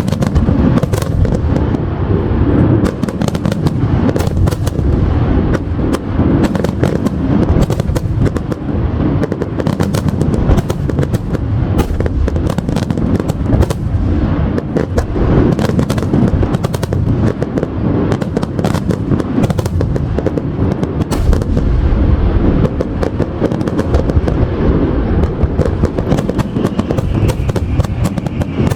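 Fireworks finale barrage: shells bursting in rapid, overlapping succession, a continuous rumble of deep booms with many sharp crackling reports on top.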